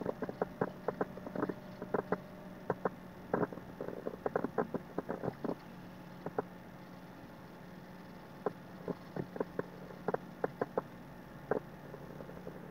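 Small round watercolour brush tapping and dabbing on paper: irregular soft ticks in quick clusters, with a pause of a couple of seconds midway, over a faint steady low hum.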